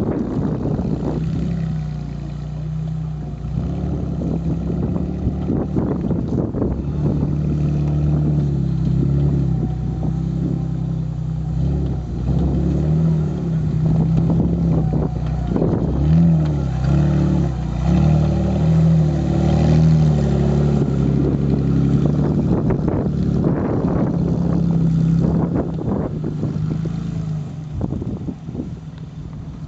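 Engine of a tube-frame off-road trial buggy running under load as it crawls over dirt mounds. Its pitch rises and falls with the throttle, and it gets quieter near the end.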